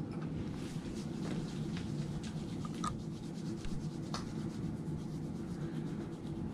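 Hands rubbing together with alcohol hand rub during hand hygiene: a soft rubbing with a few faint ticks, over a steady low room hum.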